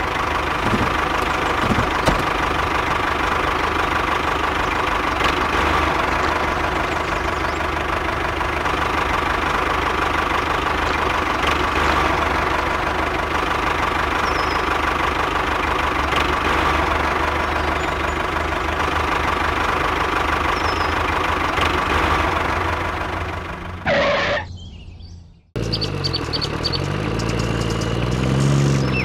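Miniature tractor's engine running steadily with a fast, even chug. About 24 seconds in it stops after a short burst, and a different, lower engine sound with a wavering pitch follows.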